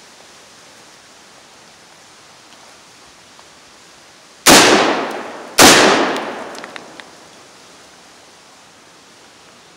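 Two rifle shots from a Kel-Tec SU-16 in .223/5.56, about a second apart, each echoing and dying away over about a second.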